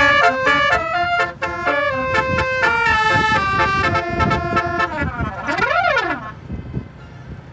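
Indonesian bus 'basuri' telolet musical air horn playing a quick tune of stepped notes, then a swooping note that rises and falls before cutting off about six seconds in, leaving engine and road noise.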